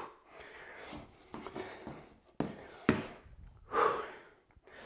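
A man breathing hard after exertion, with several audible breaths in and out. There are two short taps about two and a half and three seconds in.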